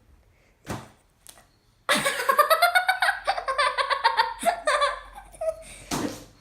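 A child giggling: a run of high, quick laughs that starts about two seconds in, after a couple of short breathy sounds.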